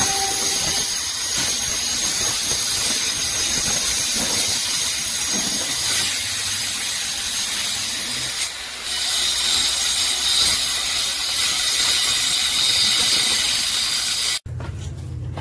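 Electric angle grinder cutting into a masonry wall: a steady high whine over a loud grinding hiss. It eases off for a moment about eight and a half seconds in, then runs on until it cuts off abruptly near the end.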